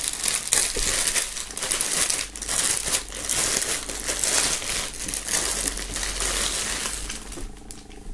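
Clear plastic film bag crinkling and rustling as a T-shirt is pulled out of it, dying down near the end.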